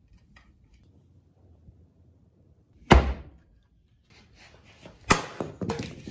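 Restored axe chopping into wood: one sharp thunk about three seconds in. A second blow about five seconds in splits a piece of firewood, and the halves clatter onto a concrete floor in a few quick knocks.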